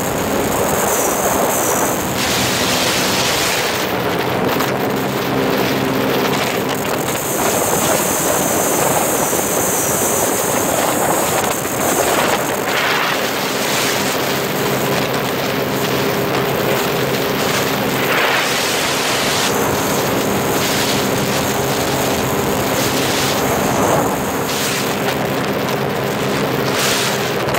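Heavy wind noise on the microphone over the steady drone of a Sea-Doo Spark's 900 HO ACE three-cylinder engine running at speed, with water rushing past the hull.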